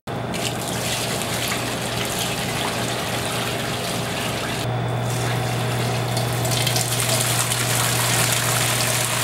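Hot maple syrup pouring in a steady stream through filters into a steel pot, the filtering step before bottling, with a low steady hum underneath. The pour's sound shifts a little about halfway through.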